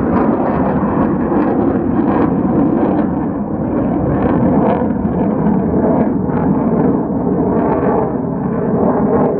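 F-35 fighter jets' single Pratt & Whitney F135 turbofans running overhead: a loud, rough jet roar with a crackle through it, holding fairly steady.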